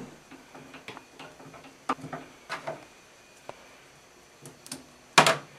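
Scattered light clicks and ticks of hand work at a fly-tying vise, from thread and bobbin handling. Near the end there is one louder, sharp snip as small scissors cut the tying thread.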